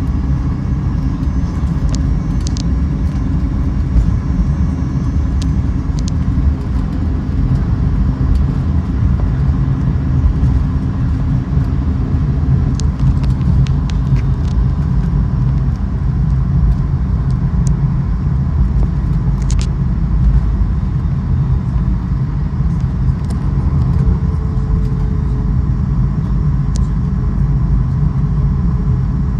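Steady low rumble of a vehicle in motion heard from inside, with scattered light clicks and rattles.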